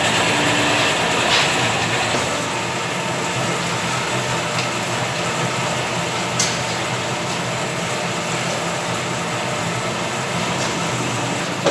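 Hydraulic concrete block and paving block press machine running with a steady mechanical noise, with a sharp click about a second in and another about six seconds in.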